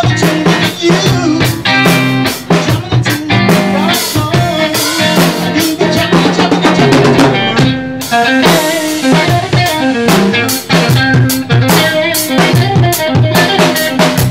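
Rock band playing an instrumental passage, drum kit with rimshots keeping a steady beat under guitar.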